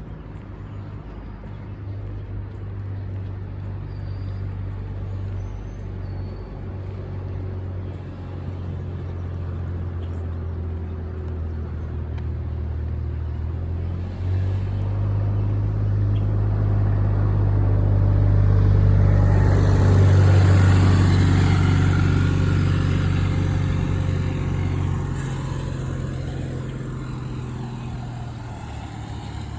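Motor vehicle engine with a steady low hum, joined by a swell of road noise that grows to a peak about twenty seconds in as a vehicle passes close by, then fades away.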